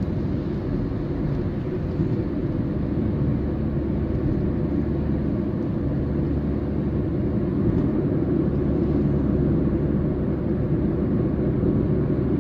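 A car driving at highway speed, heard from inside the cabin: a steady low rumble of engine and tyre noise.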